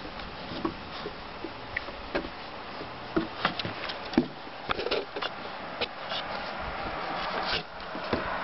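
A boxer puppy's paws and claws tapping and scuffing on wooden deck boards: scattered light irregular clicks and knocks, busiest in the middle, over a steady outdoor hiss.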